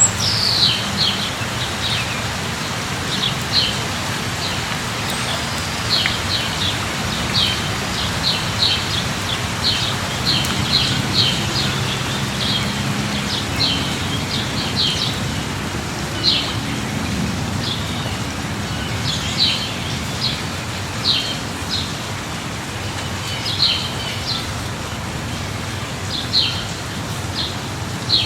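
Light rain falling steadily, with small birds giving short, high chirps again and again throughout, and a faint low hum underneath.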